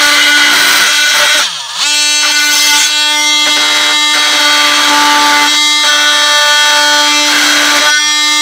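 Cordless oscillating multi-tool running at steady speed with a high whine, its blade cutting into a plastic blister pack. The pitch sags briefly about a second and a half in, then comes back up.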